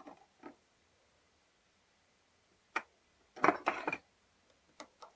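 Small metal clicks and a brief clatter from a GU multipoint lock gearbox being handled, its steel cover plate lifted off and laid on the bench. A sharp click a little under three seconds in, the loudest clatter about half a second later, and two light clicks near the end.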